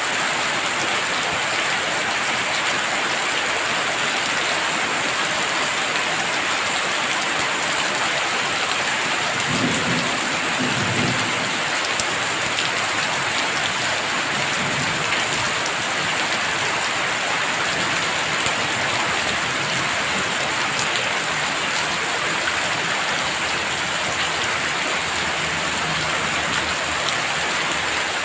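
Heavy rain falling steadily in a dense, even hiss. A brief low rumble of thunder comes about ten seconds in, with fainter low swells a few seconds later.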